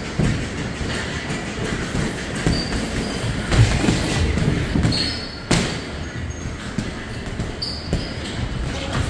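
Boxing sparring: feet shuffling and thudding on the ring floor while gloved punches land, with dull thumps and a sharp smack about five and a half seconds in.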